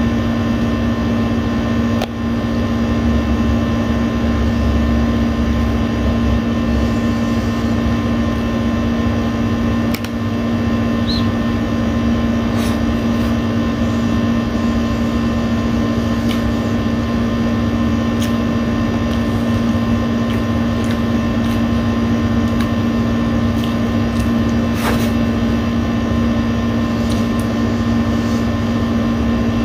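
Air conditioner running with a loud, steady hum throughout. Faint scattered clicks of eating by hand and chewing sit over it.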